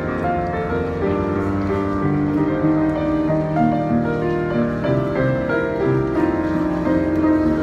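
Yamaha upright piano played continuously, a pop-ballad arrangement with sustained chords under a melody line.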